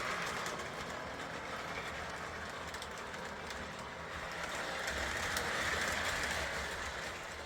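Lionel Alco FA-1 O gauge locomotive pulling a string of freight cars around three-rail track, a steady whirring rumble of motor and wheels that fades a little and swells again as the train comes by. It cuts off suddenly at the end.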